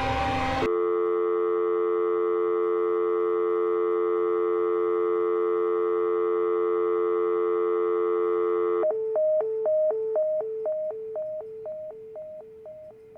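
Telephone handset tones: a steady dial tone that holds for about eight seconds, then breaks into a fast busy signal, rapid even beeps that fade away. Just before the tone, a loud music-like passage cuts off abruptly.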